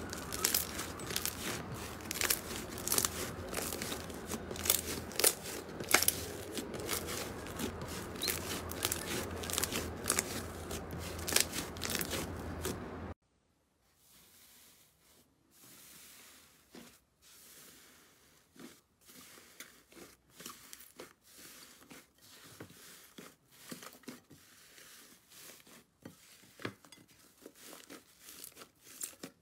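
Hands squeezing and pinching fluffy slime, giving a dense run of crackling, popping clicks over a steady low background hum. About 13 s in it cuts to blue fluffy slime being kneaded in a glass bowl, with sparse, much quieter squishes and pops.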